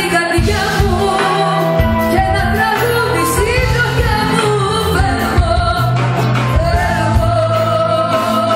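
Loud live band music with singing, played through a nightclub's sound system.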